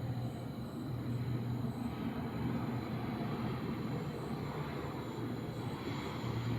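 Aeroplane flying overhead, a steady low rumble with no sharp changes.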